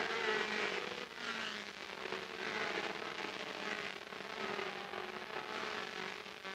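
A pack of Formula Atlantic racing cars passing on the pace lap, several four-cylinder Ford BDA engines running together with a crackling exhaust note, their pitch rising and falling as the cars go by.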